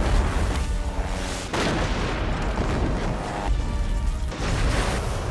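Film explosions in quick succession, sudden blasts with a deep rumble, over the film's music score.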